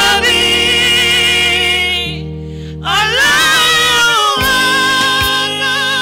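Live gospel worship singing: a male lead vocalist sings long, held phrases with a wavering pitch over sustained keyboard chords, with women backing singers. There is a short break in the voice about two seconds in before the next phrase.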